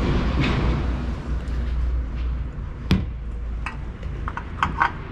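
Light clicks and one sharper knock about three seconds in, from hands working up under the car at the oil filter, over a steady low hum.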